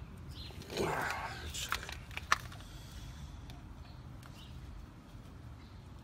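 Metal brake pads handled against a front brake caliper bracket: a brief scrape and rustle about a second in, then a sharp metallic clink a little past two seconds in. Faint bird chirps in the background.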